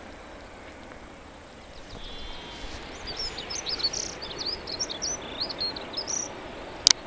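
A small bird singing: a brief trill, then a quick run of short high chirping and twittering notes, over a steady outdoor background hiss. A sharp click near the end.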